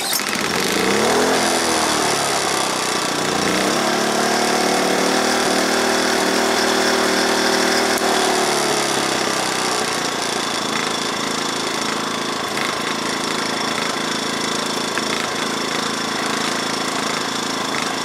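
Wen 56200i inverter generator's small four-stroke engine starting, revving up within the first second, then running steadily. About nine seconds in its speed drops and it settles to a lower steady running speed, as the eco mode throttles it back with no load on it.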